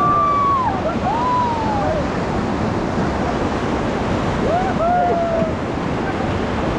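Rushing river rapids with wind buffeting the microphone, under a few drawn-out yells that rise and fall in pitch, near the start, about a second in, and again around five seconds.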